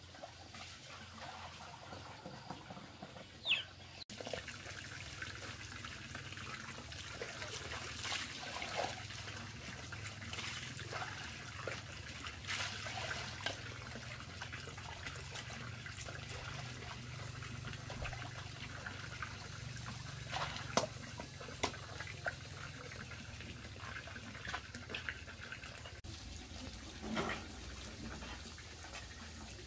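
Water trickling, with scattered small knocks and clinks and a short rising squeak a few seconds in.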